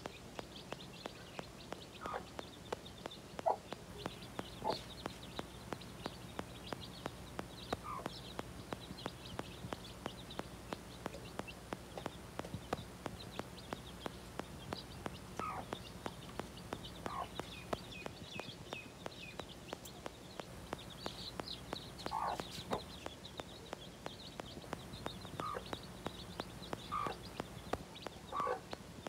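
A hen clucking briefly every few seconds while chicks peep in quick high chirps, over a faint regular ticking.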